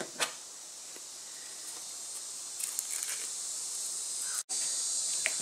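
A steady, high insect drone, with faint rustling and a sharp click as the backing is peeled off an adhesive foam strip and the strip is handled against a plastic snorkel. The sound cuts out for an instant near the end.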